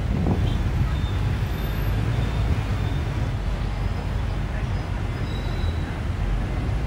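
City traffic heard from the open top deck of a moving double-decker bus: a steady low rumble of the bus and the cars and motorbikes around it.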